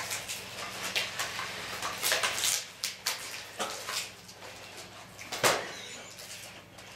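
Nao humanoid robots' joint motors whirring in short, irregular bursts, with light clicks and taps, as they move their arms and props through slow dance gestures. The loudest burst comes about five and a half seconds in, over a faint steady hum.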